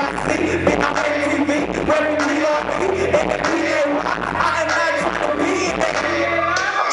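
Live hip hop played loud through a club PA: a heavy bass beat with rapped and sung vocals from the stage microphones over it.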